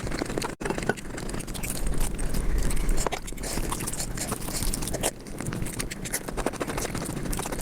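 Close-miked eating sounds sped up to several times normal speed: a rapid, dense run of chewing, biting and crunching with scraping, with a brief cut-out under a second in.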